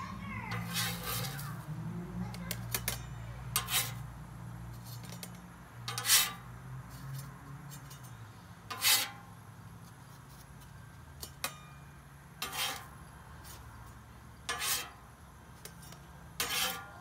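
Metal spatula scraping across the steel top of a Blackstone griddle as pancakes are slid off one at a time: a short scrape every two seconds or so, about eight in all.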